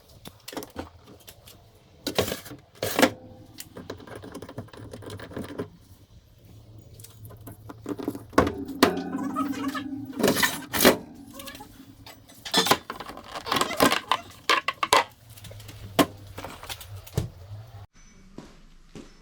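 Irregular metallic clanks, knocks and rattles of tools and loose parts being handled during the disassembly of an old refrigerator, played back fast, over a low hum.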